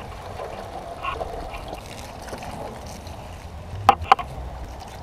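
Garden hose running, its water jet splashing and trickling steadily, with two sharp knocks close together about four seconds in.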